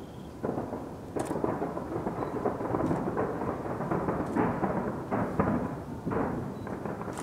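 Distant fireworks display, bursts going off in quick succession. The booms run together into a continuous rumble, with sharp cracks here and there.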